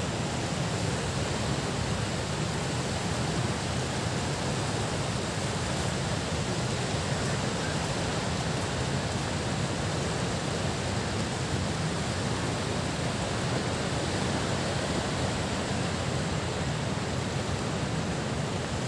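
Steady, even rushing hiss of seashore ambience, with no separate events.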